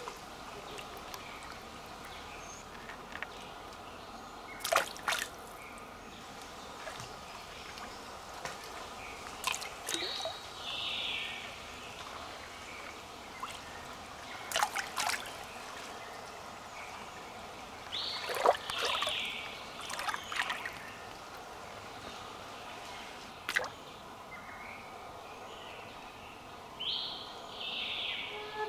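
Shallow creek water splashing and trickling as hands scoop and stir in it. Short splashes come every few seconds, some followed by a brief trickle of water running off.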